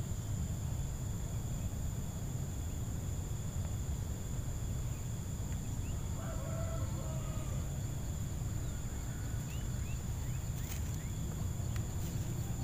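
Riverbank outdoor ambience: a steady low rumble under a thin, steady high-pitched whine. A distant rooster crows once about six seconds in, followed by a few faint bird chirps and a couple of light clicks near the end.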